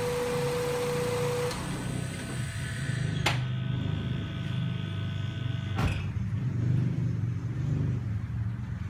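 Car engine idling steadily after being jump-started from a power-bank jump starter. A steady high whine starts with a click about three seconds in and stops with another click near six seconds.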